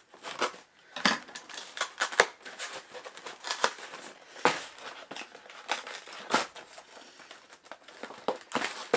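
A paperboard product box being pried open by hand: irregular scraping and ripping of cardboard, with a couple of sharp clicks.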